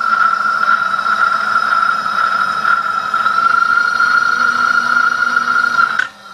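An electric machine motor running with a steady high-pitched whine over a low hum, cutting off suddenly about six seconds in.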